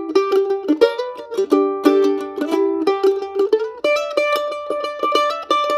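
F-style mandolin flatpicked in a quick bluegrass melody in the key of G, many notes played as two-string double stops from the closed position. About two-thirds of the way through the line moves up to higher notes.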